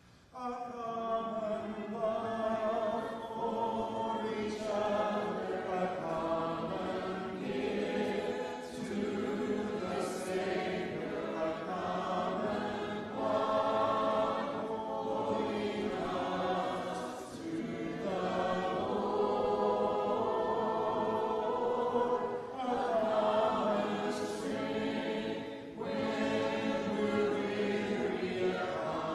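Congregation singing a hymn together unaccompanied, a cappella, starting just after the beginning.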